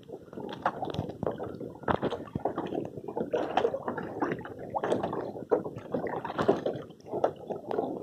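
Sea water splashing and slapping against the hull of a paddled canoe, in irregular bursts.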